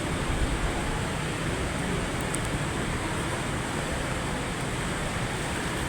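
Steady rushing background noise with no distinct events, and a couple of faint ticks about two seconds in.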